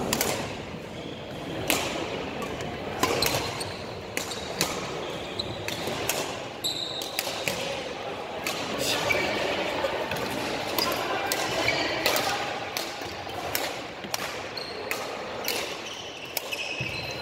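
Badminton rally: rackets striking a shuttlecock in sharp hits every second or so, with a few short high squeaks of shoes on the wooden court.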